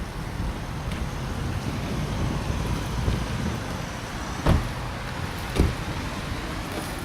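Steady low rumble of passing vehicles, with two sharp knocks about a second apart a little past the middle.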